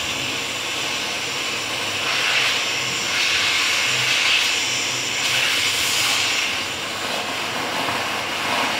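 Compressed air hissing steadily from a dental chair unit's air line, swelling and easing a few times.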